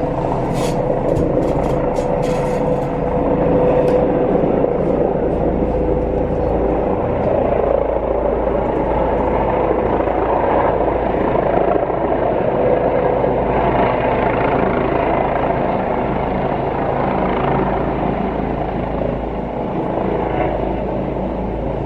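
Helicopter coming in to land, its rotor and turbine engine running as a loud, steady drone with a held tone. A few brief clicks sound in the first few seconds.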